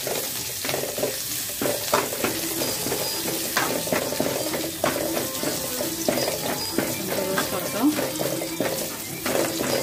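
Green chillies and curry leaves sizzling in hot oil in a metal kadai, with a metal spatula scraping and knocking against the pan again and again as they are stirred.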